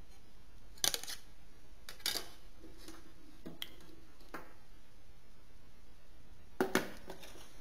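Sharp plastic clicks and knocks as the back cover of a Telefunken TM230 flip phone is prised off and handled: a couple of clicks about a second in, another about two seconds in, a few softer ticks after that, and a double click near the end, over a steady faint hiss.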